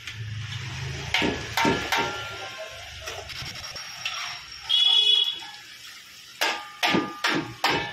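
Metal skimmer knocking and scraping against an iron kadai of chicken frying in oil: sharp clanks, a brief ringing scrape about five seconds in, and a quick run of knocks near the end.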